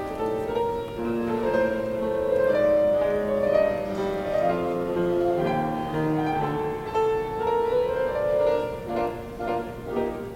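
Instrumental music with piano and bowed strings playing a slow melody of held notes. A steady pulsing beat comes in near the end.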